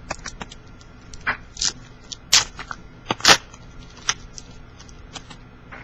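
Trading card pack wrapper crinkling as it is torn open, and cards handled: irregular rustles and sharp crackles, several of them louder.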